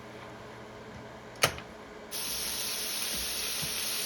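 A sharp knock about a second and a half in, then a steady sizzle starts suddenly about two seconds in: food cooking in a hot pan.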